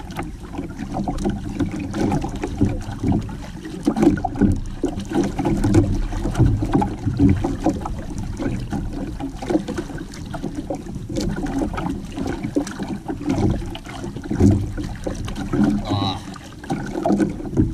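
Sea water sloshing and lapping against the hull and outrigger floats of a small canoe, in uneven splashes.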